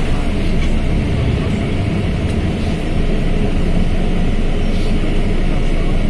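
Mercedes-Benz OF1721L BlueTec 5 bus's diesel engine running steadily, a dense low rumble with a few faint ticks.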